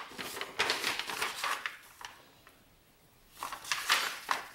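A sheet of paper rustling and crinkling as it is handled, in two spells with a quiet pause of about a second and a half between them.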